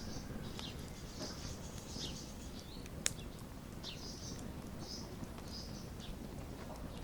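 Wood fire crackling in a fireplace, with scattered small ticks and one sharp pop about three seconds in. Small birds chirp over it in repeated short, high calls.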